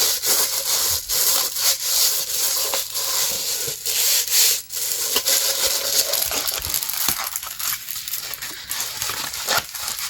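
Plastic packaging of a diamond-painting kit being handled, with irregular crinkling and crackling throughout.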